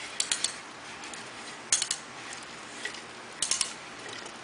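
Lego plastic pieces clicking and clattering in three short bursts as the model's jointed wings are moved and handled.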